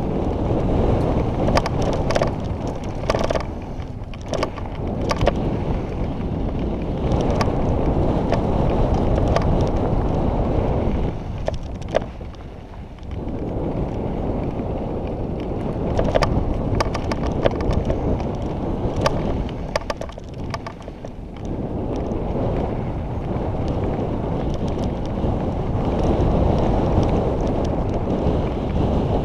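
Wind rushing over a helmet-mounted microphone and mountain-bike tyres rolling on a dusty dirt trail during a downhill run, with many sharp clicks and rattles from the bike over rough ground. The rush eases briefly twice, about a third and two-thirds of the way through.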